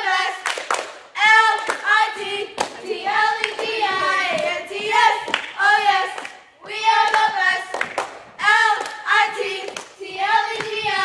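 Four high-school cheerleaders chanting a cheer in unison in a sing-song voice, spelling out letters, with sharp hand claps between the phrases.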